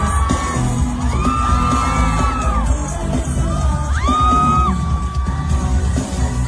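Live pop song through concert speakers, with a heavy bass beat and a sung vocal line, and an audience yelling and cheering over it.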